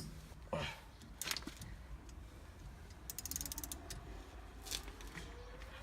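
Ratchet wrench clicking, with a fast run of about a dozen clicks a little past halfway, among several separate metal tool clunks, as fasteners on a car's brake drum are being undone.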